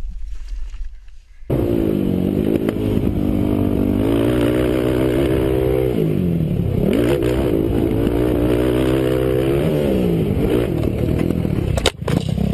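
Yamaha sport quad's engine running hard, starting about a second and a half in, its pitch climbing and dropping several times as the throttle and gears are worked. Near the end come a few sharp knocks as the quad crashes.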